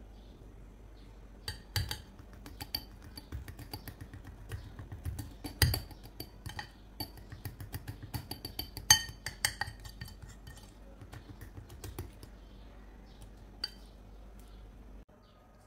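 Metal spoon stirring thick cake batter in a glass bowl, knocking and clinking against the glass sides in an irregular run of clinks. The loudest clinks come about six and nine seconds in, and the clinking stops a few seconds before the end.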